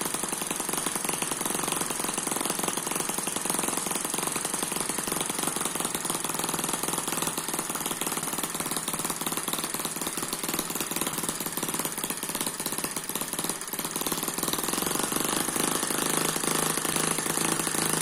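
Eachine EM4 miniature vertical water-cooled four-stroke engine running steadily, with a rapid, even firing chatter.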